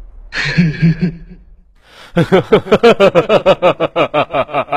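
A man laughing loudly: a short vocal outburst, then from about two seconds in a rapid, even run of 'ha-ha' pulses.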